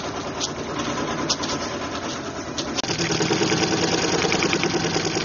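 Sprinkler plumbing hammering and shaking, the symptom of a bad water pressure regulator. First, a few irregular sharp ticks over the hiss of a pop-up sprinkler head spraying. Then, about three seconds in, a fast, steady rattling chatter at the irrigation valves.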